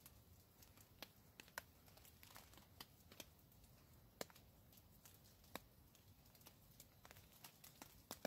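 Irregular drips of rainwater falling on the tarp overhead: scattered sharp taps, a few a second, over near silence.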